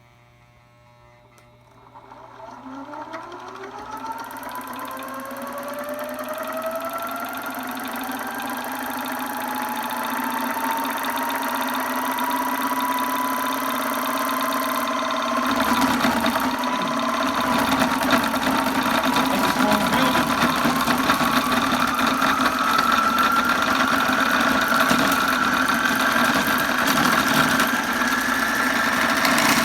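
Electric motor of an earthquake shake table starting about two seconds in, its whine climbing steadily in pitch as it speeds up. About halfway through, a loud rattling of the shaking table joins in and keeps on as the speed rises.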